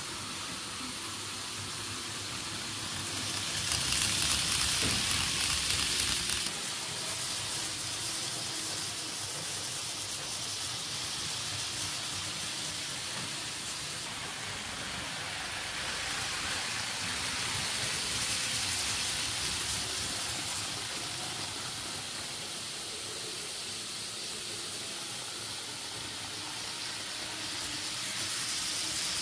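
N-gauge model trains running on the layout: a steady hiss that swells louder about four seconds in and again from about 16 to 20 seconds in.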